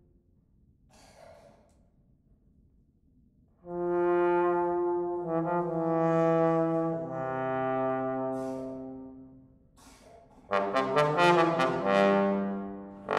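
Trombone ensemble playing: after a few seconds of near silence, sustained brass chords come in and shift pitch a couple of times. After a short break, quick repeated tongued notes, about five a second, lead into a held chord near the end.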